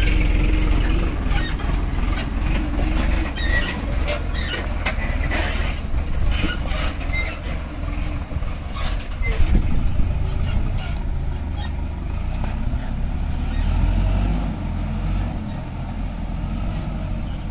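Sonalika 750 DI RX tractor's diesel engine running steadily under load as it hauls an overloaded trolley through mud, with scattered knocks in the first several seconds. It grows a little fainter near the end as it pulls away.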